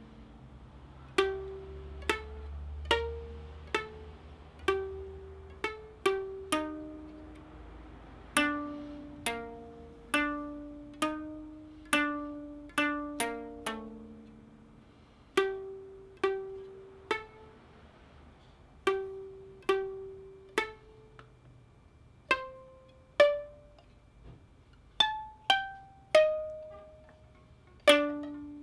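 Homemade koto plucked with finger picks, playing a slow melody of single notes, each ringing out and dying away. The maker finds the strings too slack, above all on the low strings.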